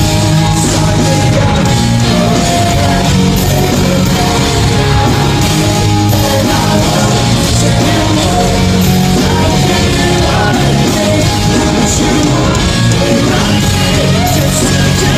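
Rock band playing live and loud: drums, distorted electric guitars and bass, with a singing voice over them.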